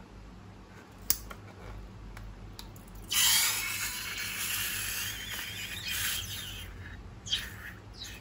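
Slime ingredient being squeezed out of a balloon: a sharp click about a second in, then about four seconds of noisy rushing, squirting sound, and another short sharp sound near the end.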